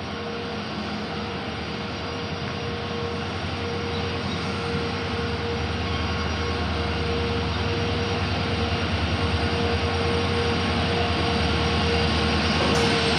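WDP 4D diesel-electric locomotive running as it approaches, a steady engine noise with a held whine, growing gradually louder.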